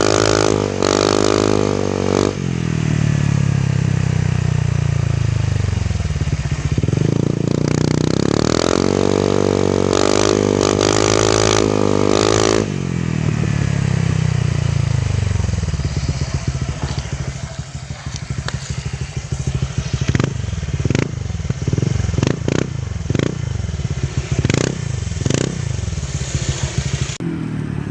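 Honda Click 125 scooter's single-cylinder four-stroke engine through an aftermarket Exos X6 exhaust, revving up and dropping back twice. After that it falls to a low, uneven run with a choppy pulsing from the pipe.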